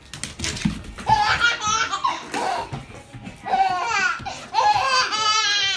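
A baby laughing hard in several separate bursts of high-pitched belly laughs, ending in a quick, pulsing run of giggles.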